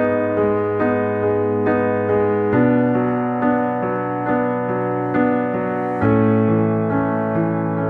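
Piano playing the instrumental introduction to a worship song: gentle repeated chords over a held bass note that shifts twice, with no singing yet.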